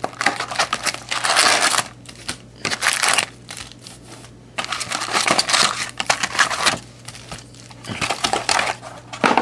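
Cardboard hobby box being opened and its foil trading-card packs handled, rustling and crinkling in several irregular bursts with short pauses between.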